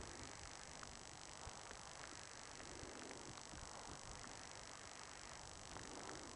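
Near silence: a faint steady hiss with a few faint ticks.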